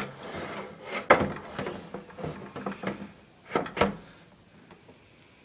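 Knocks and scraping as the old dehumidifier's water bucket and cabinet are handled. The sharpest knock comes about a second in and two more follow near 3.5–4 s, then it quietens.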